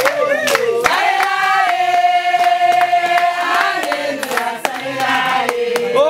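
A group of voices singing together in long held notes, with hand claps keeping time.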